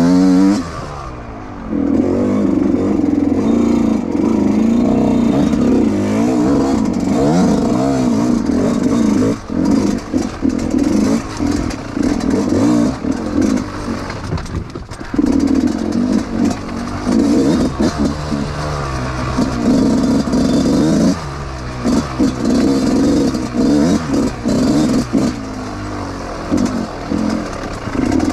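Dirt bike engine revving up and easing off over and over, with brief drops near the start and around a third and halfway through, and some clattering from the bike.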